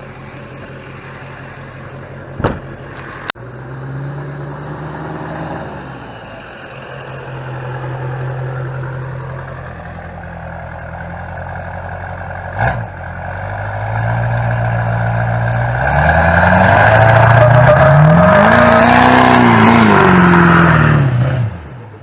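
LB7 Duramax 6.6-litre V8 turbodiesel revving through a burnout. Its note swells and eases several times, then runs loudest for the last few seconds with the pitch rising and falling as the tires spin, before cutting off suddenly. A few sharp knocks are heard in the first few seconds and once near the middle.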